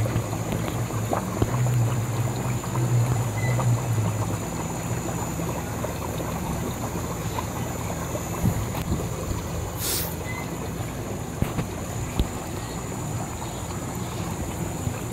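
Steady rushing and bubbling of aquarium filters and air pumps in a fish store, with a low hum that fades out about four seconds in and a brief hiss near the tenth second.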